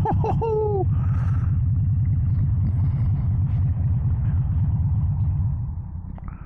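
Harley-Davidson Sportster 883 Iron's air-cooled V-twin idling through its Vance & Hines slash-cut exhaust, a deep, even pulsing. Near the end the engine is switched off and the sound dies away.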